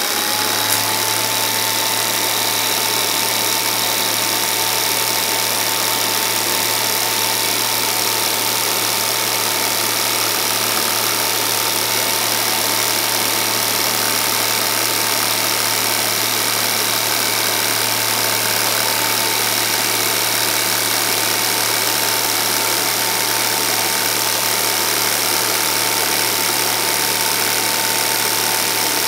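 Home-movie film projector running: a steady motor hum and mechanism whir with hiss, plus a thin high whine that rises in pitch within the first second and then holds steady.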